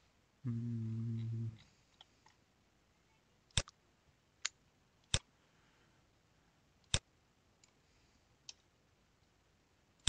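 Sharp single computer mouse clicks, about five of them, a second or more apart. Near the start, a low steady hum lasts about a second.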